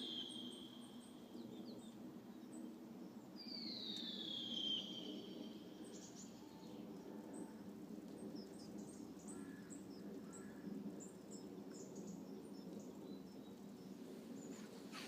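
An unidentified bird's loud, drawn-out whistled call sliding down in pitch, once about four seconds in, with the tail of an earlier call at the very start. Faint high chirps and a steady low background rumble run underneath.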